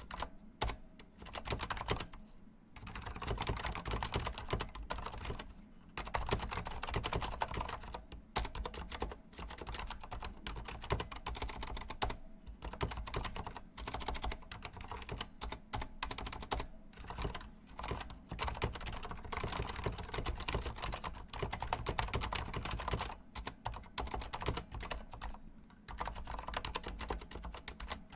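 Continuous fast typing on a Corsair Strafe mechanical keyboard with Cherry MX Silent switches, raised on its feet: a dense stream of key clicks broken by brief pauses every few seconds.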